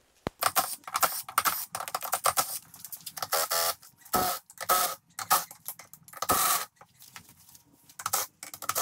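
Ratchet wrench clicking in short quick runs, with metal clicks and knocks, as bolts are worked loose on a Volkswagen 020 transmission case. The loudest runs come about four seconds in and again past six seconds.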